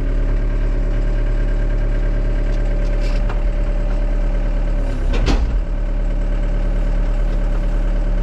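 Diesel excavator engine running steadily at raised idle. About five seconds in, its note dips briefly and comes back up.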